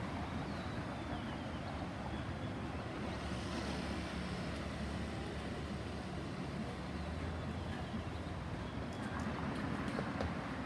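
Steady road traffic noise: a continuous low rumble of vehicle engines and tyres, with no siren sounding.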